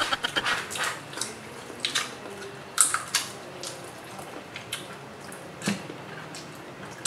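Close-up eating sounds of boiled crab eaten by hand: wet mouth smacks, sucking and light clicks of shell, scattered irregularly.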